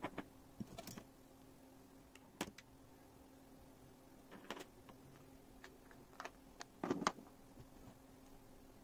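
Small 3D-printed plastic case parts being handled and set down on a cutting mat: irregular light clicks and taps, the loudest pair about seven seconds in, over a faint steady hum.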